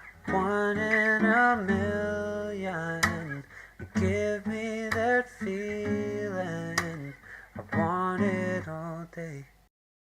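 Music: the closing bars of a pop song with guitar and wordless singing, ending about nine and a half seconds in with a brief gap of silence.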